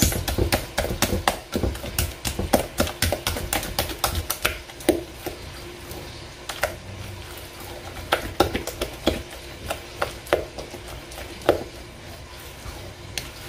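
A spatula stirring thick cornbread batter in a glass mixing bowl, knocking and scraping against the glass in quick light taps and clicks, which come thickly for the first few seconds and more sparsely after.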